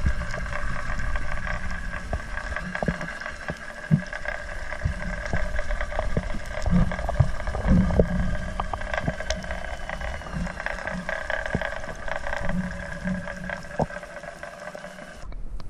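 Underwater sound picked up by a diver's camera: a steady hum of several held tones with scattered sharp clicks and soft low thumps. The sound changes abruptly near the end.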